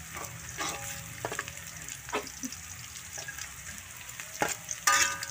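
Sliced shallots and bird's eye chillies sizzling in oil in a metal wok while a metal spatula stirs them, scraping and knocking against the pan. Several knocks leave a brief metallic ring, and the loudest clangs come near the end.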